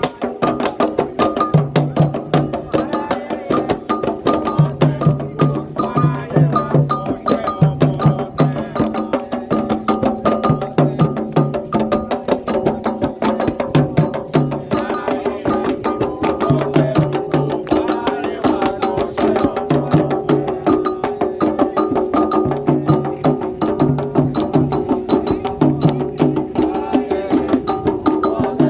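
Candomblé toque played by alabê drummers on atabaque hand drums: dense, rapid strikes over a steady, driving rhythm, with a low drum pulse that comes in short repeated groups.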